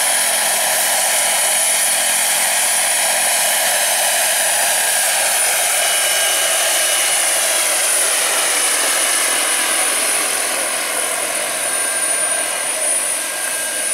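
Gas turbine of a large-scale RC EC-120 model helicopter in flight: a steady high whistle over a rushing noise. It grows a little quieter in the last few seconds as the model climbs away.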